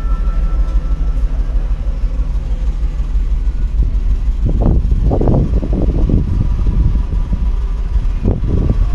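Wind buffeting the microphone, a steady low rumble throughout, with people's voices heard briefly about halfway through.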